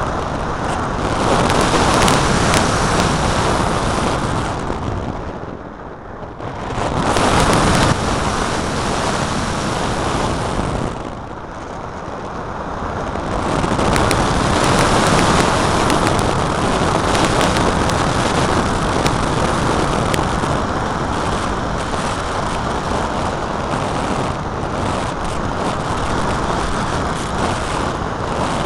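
Air rushing over the microphone of a small camera riding on an unpowered flying-wing glider in flight: a loud, even rushing noise that eases off briefly about six seconds in and again around eleven seconds, then swells back.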